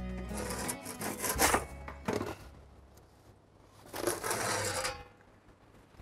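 Metal pizza peel scraping across the oven's stone floor tiles twice: first as it slides in under the pizza, and again about four seconds in as the turned pizza is slid back down.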